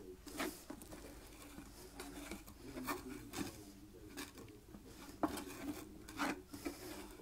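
Green plastic slotted spatula scraping and pushing food around a frying pan: a series of uneven scrapes, the loudest a little over five seconds in.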